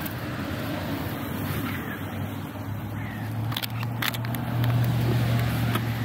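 A passing car's engine hum, getting louder about four seconds in and easing off near the end, over wind on the microphone. A few sharp clicks and rustles about three and a half to four seconds in as a paper item is picked out of fallen leaves by a gloved hand.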